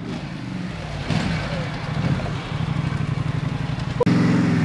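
Garden tractor engine running steadily, suddenly louder about four seconds in.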